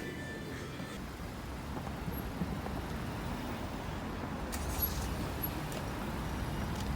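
Distant road traffic: a steady low noise, with a few faint clicks about five seconds in.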